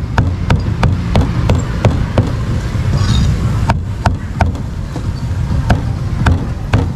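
Meat cleaver chopping crispy-skinned roast pork belly on a thick wooden chopping block: sharp knocks at about three a second, with a short pause near the middle before the chopping resumes. A steady low rumble runs underneath.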